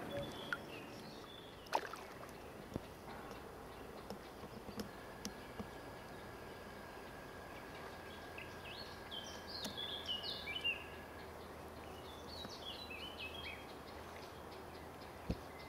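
A songbird singing two short phrases of stepped, falling notes, about halfway through and again a couple of seconds later, over a faint outdoor hush, with a few faint knocks.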